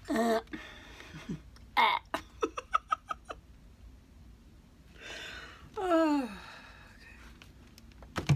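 A woman's wordless vocal sounds: short bursts of giggling in the first few seconds, then a falling groan about six seconds in.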